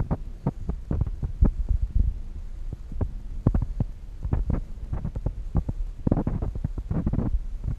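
Handling noise from a handheld GoPro camera being carried: irregular soft knocks and thumps over a low rumble, with a stretch of denser rustling about six seconds in.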